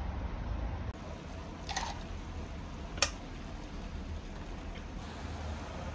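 Pipis (clams) being dropped into a pan of simmering paella: a short wet splash a little under two seconds in, then a single sharp shell click about three seconds in. A steady low rumble of city traffic runs underneath.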